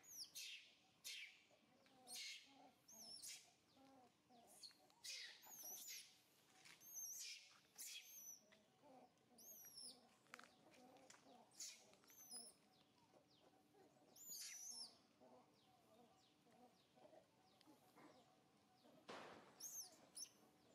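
Faint bird chirps: short high calls repeating every second or two, with a louder one near the end.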